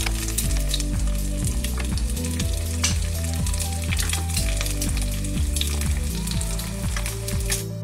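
Egg frying in a pan, sizzling with a constant crackle of small pops, over background music with a steady beat.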